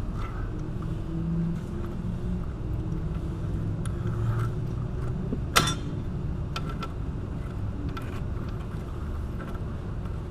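Steady low rumble with scattered light metal clicks and one sharp metal clink about five and a half seconds in, from socket and hand tools working the bolts of a front wheel hub assembly.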